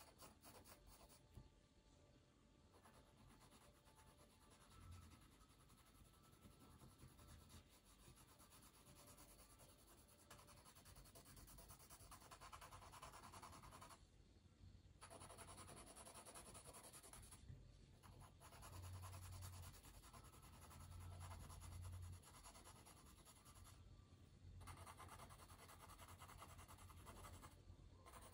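Faint scratching and rubbing of a pencil on paper as a drawing is sketched and shaded, broken by a few short pauses between strokes.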